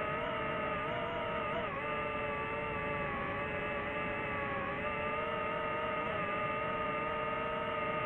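Quadcopter drone's propellers whining steadily in several pitches at once. The whine dips briefly in pitch about two seconds in and again near five seconds, over a low rushing noise.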